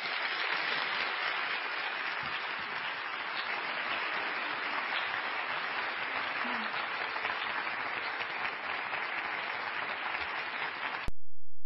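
Audience applauding steadily, which cuts off abruptly near the end.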